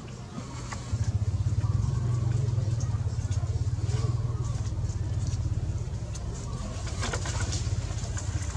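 A low, steady engine drone comes in suddenly about a second in and keeps running, with soft cooing calls over it. Near the end there is a brief crackling, like a plastic water bottle being handled.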